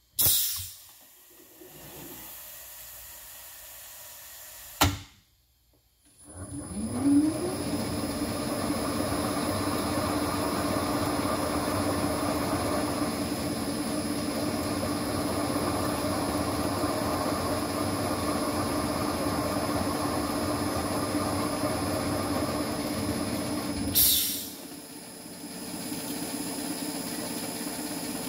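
Valve-guide machine spindle spotfacing the valve-guide tops on a Pontiac cylinder head. The motor spins up with a rising whine about six seconds in, then runs steadily. A sharp hiss of air comes at the very start and again near the end, and there is a click just before the motor starts.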